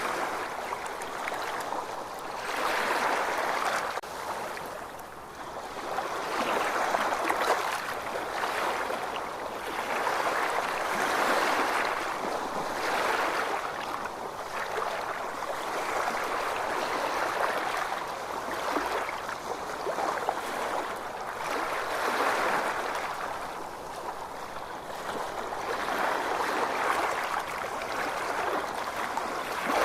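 Ocean waves washing in, a rushing noise that swells and fades every two to three seconds.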